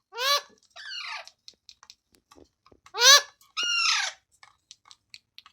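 Green parrot calling twice, each time a short rising-and-falling squawk followed at once by a longer, falling note.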